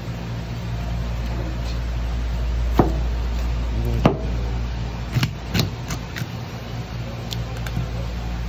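Kitchen knife cutting through the head and collar of a barred knifejaw on a cutting board: several sharp knocks of the blade through bone and onto the board between about three and six seconds in, with smaller ticks after. A steady low hum runs underneath.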